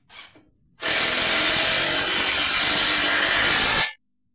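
Fein 12 V cordless driver driving an 80 mm wood screw into a piece of fir. It runs steadily for about three seconds and stops suddenly, sinking the screw without much trouble.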